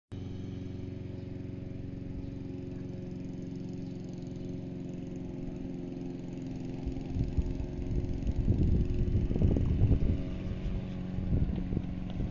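A motor running steadily with an even hum, with louder irregular low rumbling from about seven seconds in.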